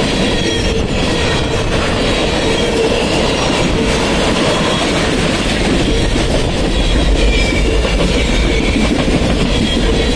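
Freight train cars rolling past at close range: a steady rumble and clatter of steel wheels on the rails, with faint high wheel squeals coming and going. The low rumble swells a little about two-thirds of the way through.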